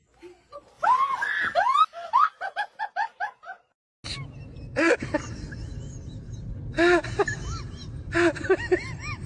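A person laughing: a rising-and-falling whoop, then a quick run of short 'ha-ha' bursts. After a sudden change of background about four seconds in, a few short rising-and-falling calls follow.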